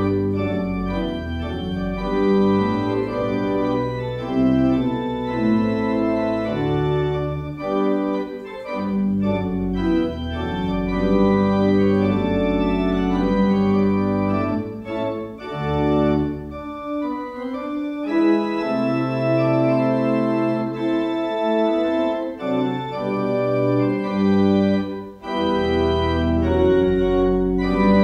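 Organ music: slow, sustained chords over held bass notes that change every second or two.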